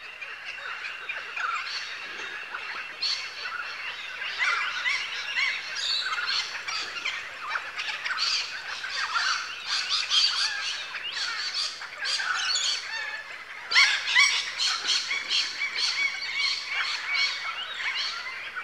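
A flock of birds calling and squawking, many short calls overlapping into a dense chatter that thickens after a few seconds, with a loud burst of calls about two-thirds of the way through.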